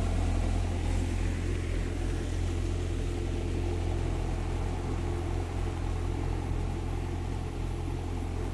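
A tractor engine running steadily as it ploughs a flooded paddy field, heard as a low, even hum.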